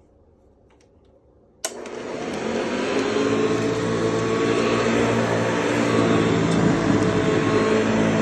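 A 1960s Eureka Model 260D vacuum cleaner is switched on with a click about one and a half seconds in. Its motor spins up, rising in pitch over a second or so, and then runs steadily.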